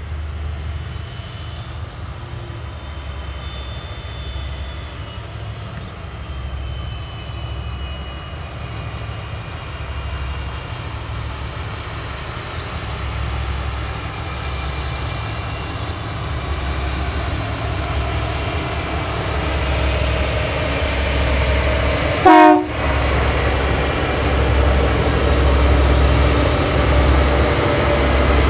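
Six diesel-electric freight locomotives (SCT, CSR and EL classes) rolling past under power as they pull a train out of the depot, with a steady low engine rumble that grows louder as the units come level. About three-quarters of the way through there is one short horn blast.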